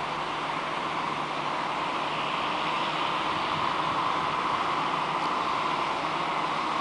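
Renfe electric multiple unit rolling slowly into a station: a steady mechanical rush of its running gear and equipment, a little louder in the second half as it comes closer.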